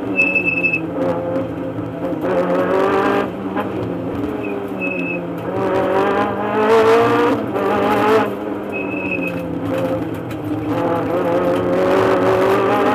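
Rally car engine heard from inside the cabin at speed, the revs climbing and dropping several times as the driver accelerates, shifts and lifts. A short high beep sounds three times over it.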